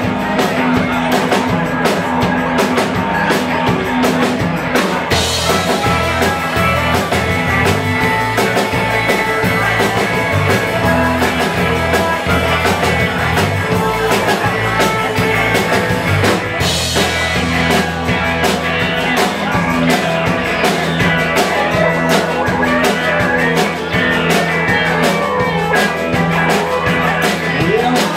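Rock band playing live, with electric guitars and a drum kit in a steady, loud groove. The high end turns brighter and busier from about five seconds in until about seventeen seconds.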